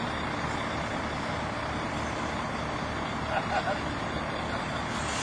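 Crane's engine running steadily under load, a constant low rumble with a dense noise over it, and faint voices partway through.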